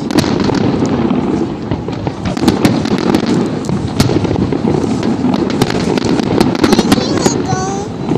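Fireworks display: aerial shells bursting in many bangs and crackles in quick succession over a continuous low rumble.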